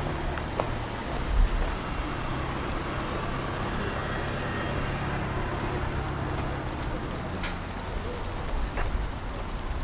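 A small Audi hatchback driving slowly past close by, a steady low engine hum over tyre and street noise that fades after several seconds.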